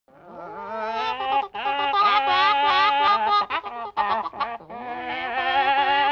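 Cartoon chicken sound effect: a comic chicken voice calling in long, wavering, warbling squawks, broken by a few short gaps.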